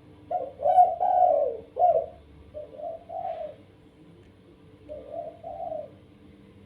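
A dove cooing in three short phrases of rounded notes, the first phrase the loudest.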